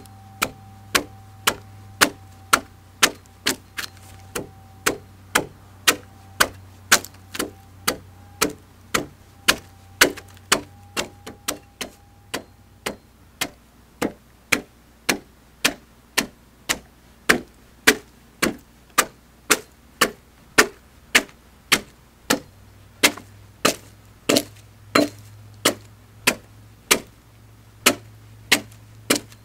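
Axe hewing a round log flat, short chopping strokes about two a second, each a sharp knock as the blade bites and splits slabs and chips off the wood.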